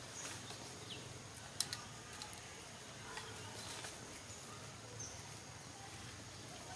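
Quiet outdoor ambience with a few short, high, downward-sliding chirps and a few sharp ticks, the loudest tick about a second and a half in.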